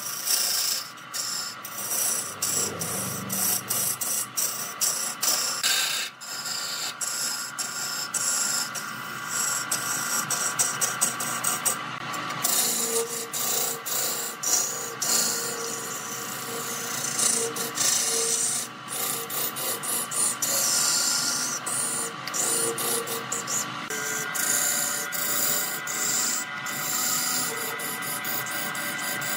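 Wood lathe spinning a wooden spindle while a turning tool cuts into it, a continuous rasping scrape of shavings being peeled off, broken by many short gaps.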